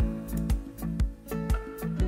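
Background music with a steady beat of about two beats a second over sustained notes.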